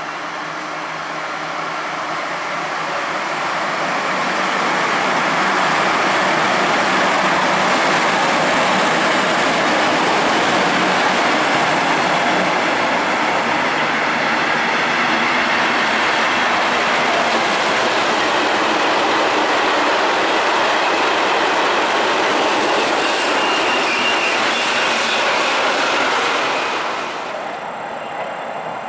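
Intercity train of white coaches running past on the platform track: a loud, steady rush of wheels on rail that builds over the first few seconds and drops away sharply near the end.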